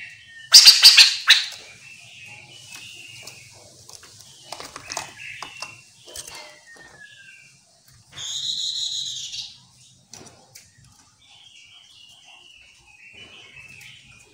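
Chestnut-capped laughingthrushes calling: a loud, harsh chattering burst about half a second in, then softer chirps and short whistles, with one long ringing call about eight seconds in.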